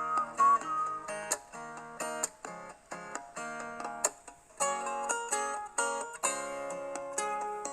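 Background music: plucked string instruments, like guitar or mandolin, playing chords in short, sharply struck notes.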